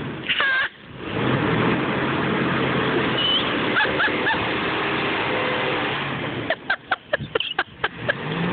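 Dodge Ram's Hemi V8 running steadily under load as the pickup tows a mud-stuck ATV out on a strap, with the ATV's engine mixed in. A quick run of short, sharp noises comes near the end.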